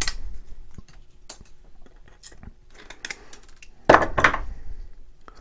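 Thin PLA support material being snapped and picked off a 3D print with needle-nose pliers: scattered small clicks and cracks, with two louder snaps about four seconds in.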